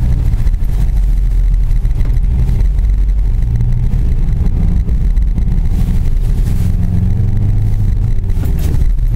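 Suzuki Grand Vitara's engine heard from inside the cabin as the SUV drives through deep snow, its note rising and falling with the throttle. A few brief knocks come about two thirds of the way in and near the end.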